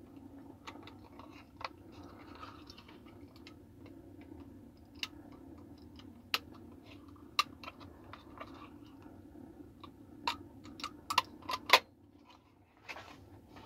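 Small plastic clicks and snaps as a Siemens Landis termination module's plastic parts are pressed and snapped back together onto its circuit board, scattered at first and coming quickly in a cluster about ten seconds in, over a faint steady hum.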